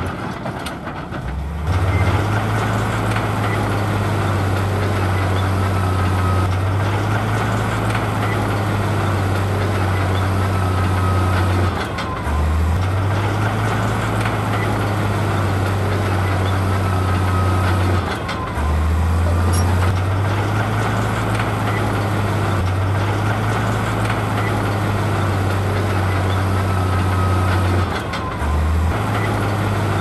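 Heavy diesel engine of a construction machine running steadily under work. Its note dips briefly and comes back up four times.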